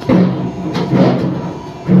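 Four loud knocks, each followed by a ringing tone.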